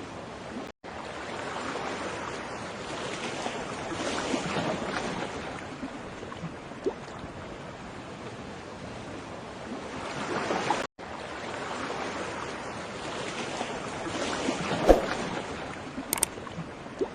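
Water washing like waves, an even rushing that swells and ebbs, loudest about four and ten seconds in. The sound cuts out for an instant twice, and a couple of small knocks come near the end.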